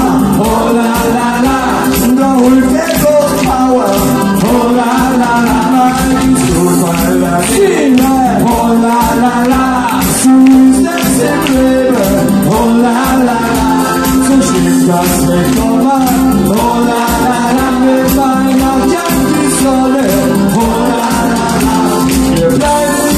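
Live party band music: a man sings lead into a handheld microphone over acoustic guitar and a steady beat.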